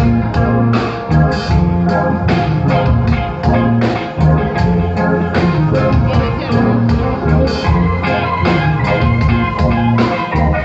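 Live band playing an instrumental passage on electric guitars, keyboard and drums, with a steady drum beat under sustained low notes.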